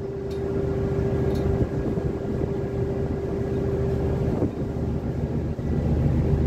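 Ship's diesel engine running steadily on a river vessel: a low, even drone with a steady hum above it.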